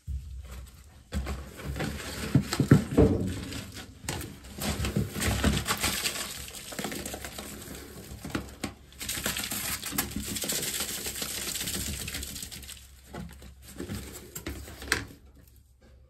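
Foil flex dryer duct crinkling and rustling in irregular bursts as it is handled, squeezed and shaken to empty out lint and debris.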